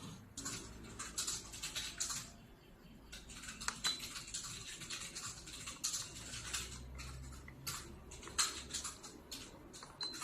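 Close handling sounds: irregular rustling and scraping with light clicks and taps, over a faint low hum.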